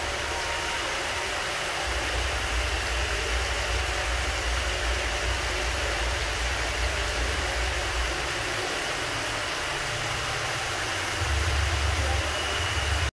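Water pouring steadily from a row of wall-mounted cascade spouts and splashing into a swimming pool, heard as a steady hiss. A low rumble runs underneath and grows louder near the end.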